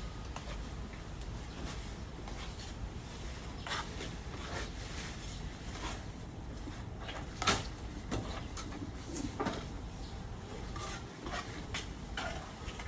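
Scattered light clinks, taps and scrapes of hard objects over a steady low hum, with one sharper click about seven and a half seconds in.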